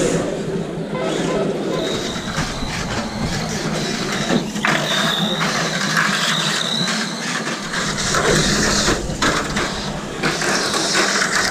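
Small electric model cars running: a thin, high motor whine with dense clicking and rattling throughout.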